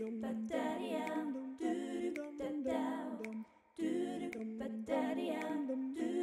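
Outro music of a cappella singing: voices carry a slow melody in phrases about a second long, with a short break about three and a half seconds in.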